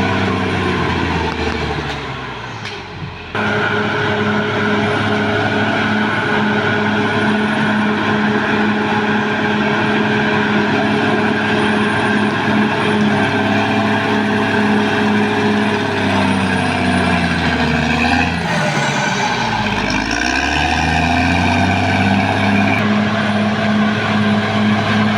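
Caterpillar D6R XL bulldozer's diesel engine running steadily. Its pitch sags and climbs back about three quarters of the way through, and the sound drops briefly near the start before returning abruptly.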